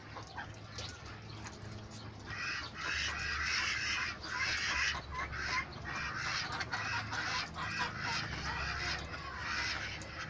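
Domestic ducks in a pen quacking, a run of rough, repeated calls that starts about two seconds in and keeps going.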